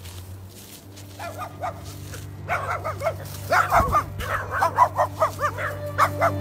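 A frightened small puppy yelping and barking in quick, high, repeated cries that start about a second in and come thicker and louder from about halfway. A steady low hum runs underneath.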